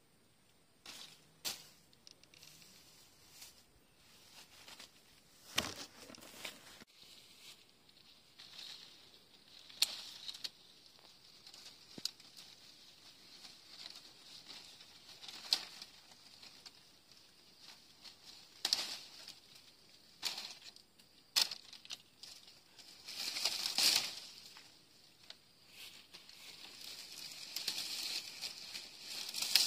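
Orange-tree leaves and twigs rustling, with irregular sharp snaps of stems as oranges are picked by hand. The loudest rustling comes about three quarters of the way through.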